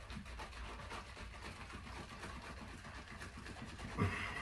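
A can of expanding spray foam insulation being handled and dispensed into a gap, faint and noisy, with a short louder sound about four seconds in.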